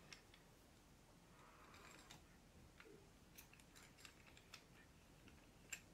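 Very quiet handling sounds of a Screwpull lever corkscrew being assembled: a soft rustle about two seconds in, then a scatter of small metal-and-plastic clicks and taps as its spiral screw is fitted, with a sharper click near the end.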